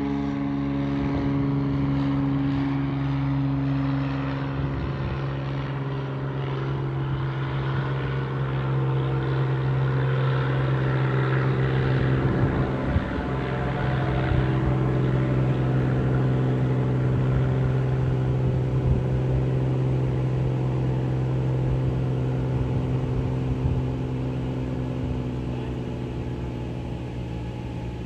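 Single-engine floatplane's propeller engine at take-off power, a drone that slowly fades as the plane climbs away. A steady low hum runs beneath it.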